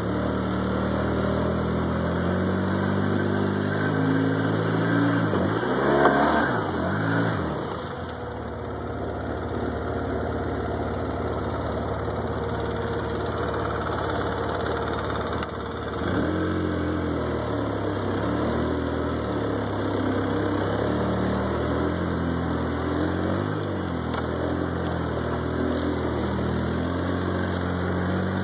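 Polaris ATV engine running while riding, its pitch rising and falling with the throttle, with a brief drop and climb again about six seconds in.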